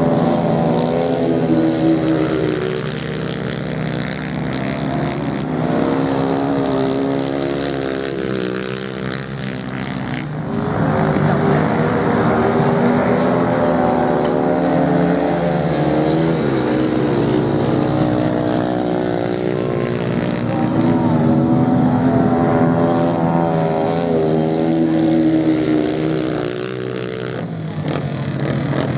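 Racing motorcycle engines, several bikes lapping a track, revving up and dropping back again and again as they slide through the turns. Louder again from about ten seconds in, as bikes pass close.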